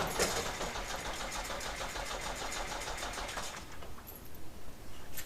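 Backhoe's starter motor cranking the stalled engine in a quick even rhythm, then cutting off about three and a half seconds in. The starter was being forced on by itself after the engine died, following damage from a log crushed under the bucket.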